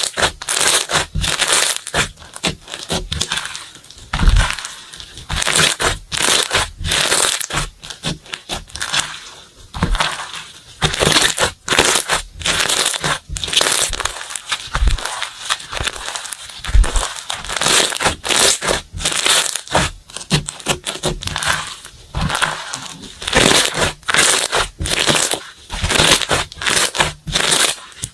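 Slime being squished and stretched by hand, giving a dense, irregular run of crackling pops in quick clusters.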